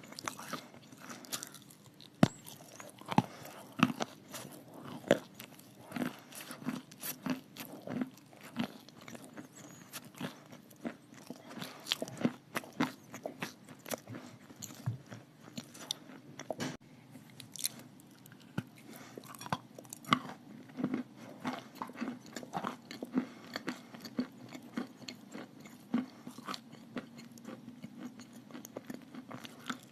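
Close-up biting and chewing of chalk mixed with clay paste: irregular crisp crunches and snaps, several a second, over a faint steady hum.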